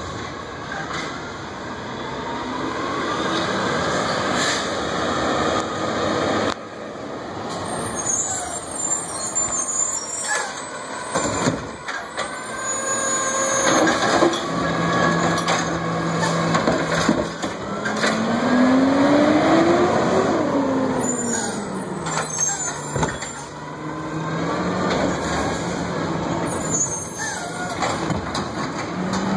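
Automated side-loader garbage truck with a Curbtender body working at the curb: the diesel engine and machinery run steadily, with a tone that rises and falls in pitch partway through. A few sudden hisses and clanks come in the first half, typical of the truck's air brakes and the cart-handling arm.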